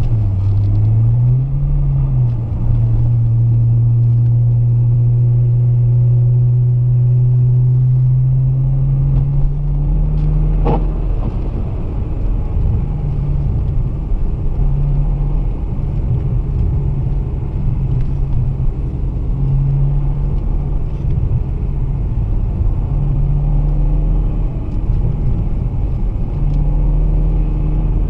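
2008 BMW 335i's N54 twin-turbo straight-six running while driving, over a low road rumble. The engine note dips and climbs again at the start and holds steady for about ten seconds. After that it comes and goes over a rougher rumble.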